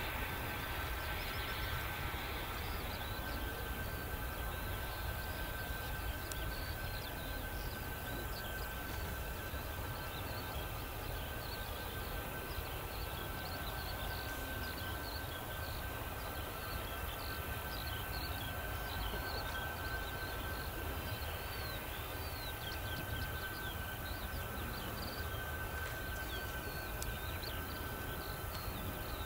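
Boeing C-17 Globemaster III's four Pratt & Whitney F117 turbofan engines running at low taxi power: a steady whine over a low rumble.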